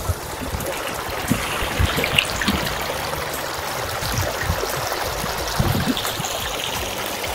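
Floodwater rushing across a submerged road and spilling over its edge. It makes a steady splashing sound like a small weir.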